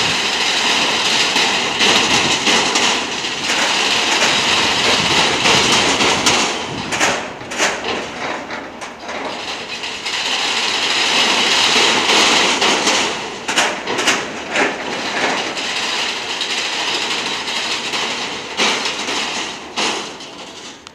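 Car-carrier freight train rolling past: a steady, loud rolling noise of steel wheels on rail, with sharp clacks at irregular intervals as the wheels cross rail joints. The noise eases for a moment about halfway through, swells again, and fades toward the end.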